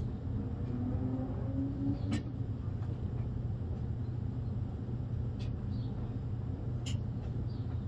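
Steady low rumble, with a few light clicks and water drips as a plastic gold pan is worked over a tub of muddy water.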